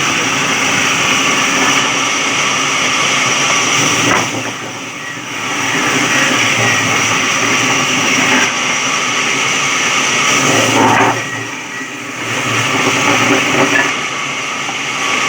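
Electric sawmill saw running loud and steady while cutting wood, the sound easing off briefly twice, about four seconds in and again near eleven seconds.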